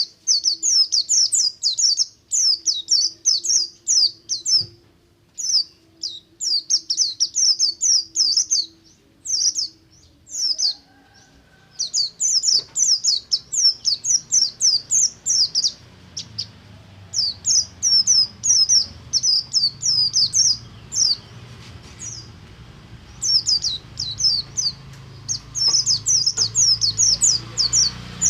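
A white-eye (pleci, buxtomi type) singing its wild-style ngalas song: fast, high-pitched twittering in long runs broken by short pauses. A low hum sits underneath in the second half.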